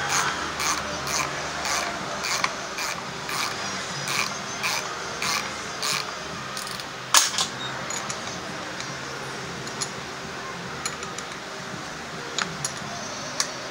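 Hand ratchet wrench clicking in a steady rhythm while bolts on a motor scooter's rear end are worked, then one sharp clack about seven seconds in and a few scattered light clicks.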